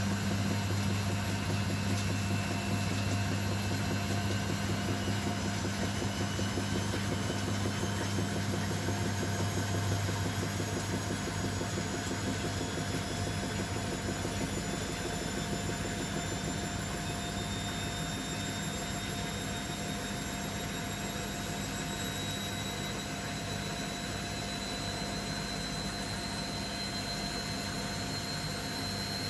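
Beko WML 51211 EL+ washing machine running, likely in its spin: a steady low hum that eases after about ten seconds, under a high motor whine that climbs slowly in pitch as the drum speeds up.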